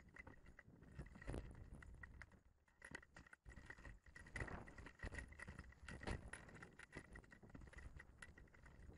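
Quiet rustling and scattered small clicks and knocks from a hang glider's frame and harness as it is walked over grass, with a light wind rumble on the microphone.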